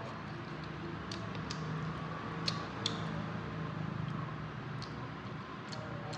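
Close-up eating sounds of boiled chicken being chewed: wet smacking with a handful of sharp mouth clicks spread through, the two loudest close together about halfway.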